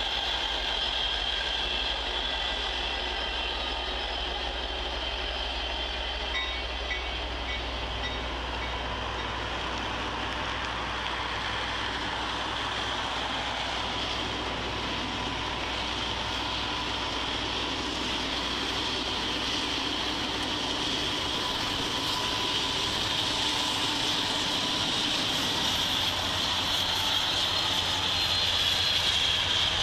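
Freight trains passing: the low rumble of diesel locomotives and rolling cars dies away over the first two-thirds. The train noise then swells again near the end as a second freight train's diesel locomotives draw up.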